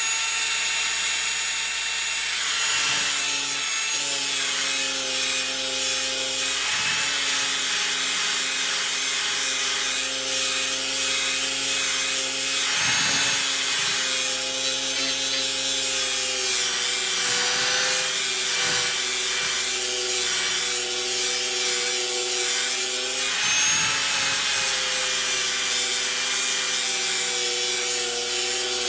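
Electric power tool running continuously and working wood, a steady motor whine over a rasping hiss, with brief dips in the whine every few seconds as the load changes.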